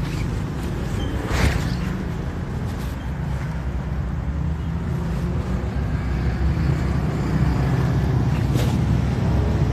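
Steady low rumble in the background, with brief rustles of a PVC raincoat being pulled on and adjusted, about a second and a half in and again near the end.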